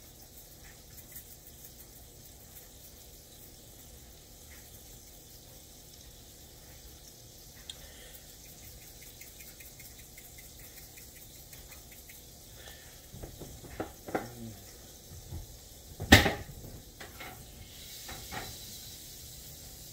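Salt and pepper shakers being shaken over a bowl of buttered green beans, with faint rapid ticking, followed by several knocks of kitchenware being handled and one sharp, loud clack near the end.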